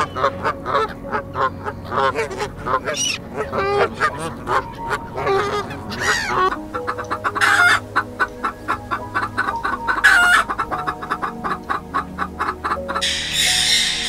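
Animal calls over background music: varied short calls that bend in pitch, then from about halfway a fast run of short repeated calls, about five a second, with steady held music tones underneath.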